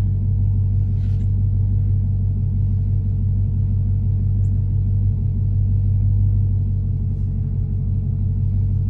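Chrysler 300 SRT8's V8 engine idling, a steady low rumble.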